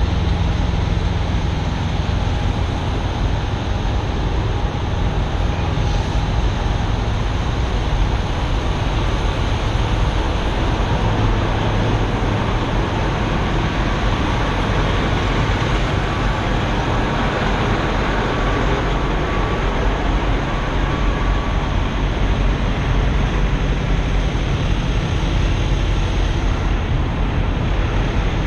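Steady low rumble of idling diesel semi-truck engines.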